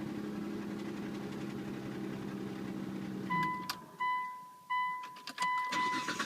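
2003 Mitsubishi Eclipse GTS V6 idling steadily, its cold-start rattle almost gone, then switched off about three seconds in. A repeating electronic chime beeps after it stops, with a few clicks.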